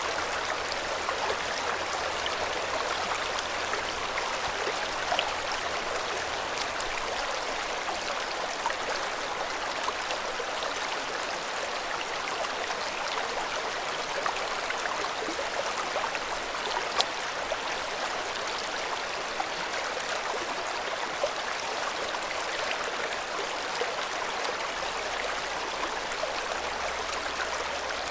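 River water flowing steadily over stones, a continuous rushing babble with small splashes and clicks scattered through it.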